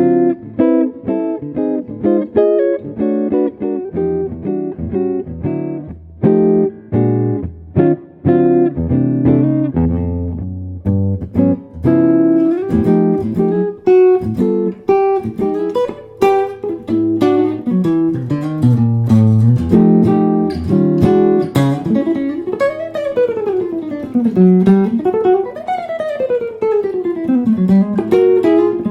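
Maple archtop guitar with a 15.5-inch body being played. It starts with chords, moves to single-note lines about ten seconds in, and near the end plays fast runs sweeping up and down the neck.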